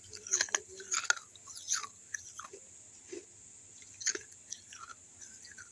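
Chewing pieces of a baked clay kulhad (clay cup): a quick run of sharp crunches in the first two seconds, then scattered softer crunches, with one louder crunch about four seconds in.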